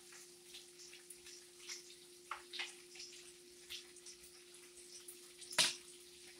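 Scattered pops and crackles from a stovetop where bacon and sausage are frying and thick grits are boiling, with one sharper pop about five and a half seconds in. A steady low hum runs underneath.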